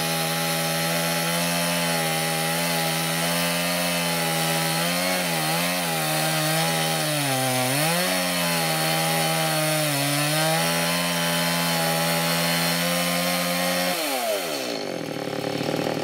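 Petrol chainsaw cutting across the top of an upright round-timber post, the engine held at high revs and dipping in pitch a few times as the chain bites in. Near the end the revs fall away sharply as the throttle is let off.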